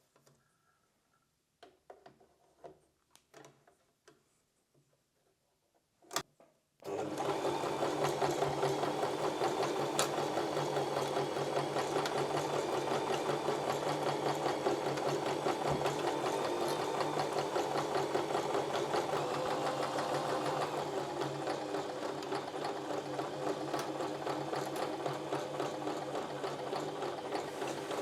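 A few light clicks and handling knocks, then an electric sewing machine starts about a quarter of the way in and runs steadily, stitching, to the end.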